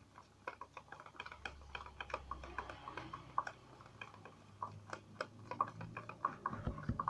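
A plastic spoon stirring a thick pink glue-based slime mixture in a plastic container: a quick, irregular string of soft clicks and ticks.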